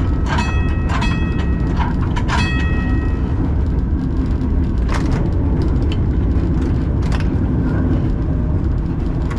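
Two-axle museum tram running along the track, with a steady low rumble and single clicks over the rail joints. For the first three seconds a bell rings, struck about once every 0.7 seconds.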